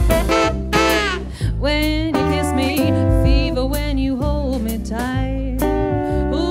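Swing band playing: a saxophone phrase ends about a second and a half in, and a woman's voice takes up the melody with vibrato over a walking upright double bass, guitar chords and a steady beat.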